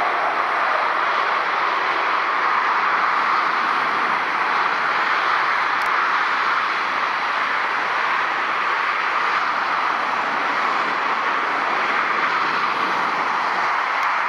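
Steady, even rushing noise of distant traffic, with no distinct engine whine or tone standing out.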